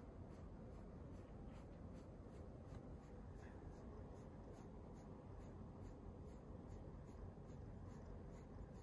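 Near silence: a faint low background hum with soft, even ticking at about three or four a second.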